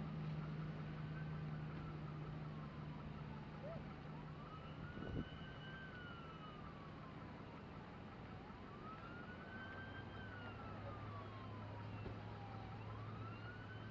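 Emergency vehicle siren wailing, a slow rise and fall repeating about every four seconds, over a steady low hum. A single thump about five seconds in.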